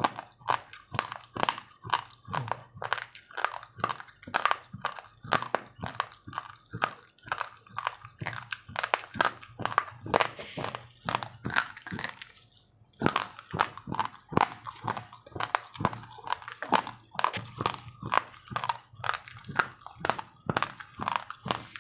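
A person chewing raw, uncooked rice grains close to the microphone: a steady run of hard, dry crunches, about two to three a second, with a short pause a little past halfway.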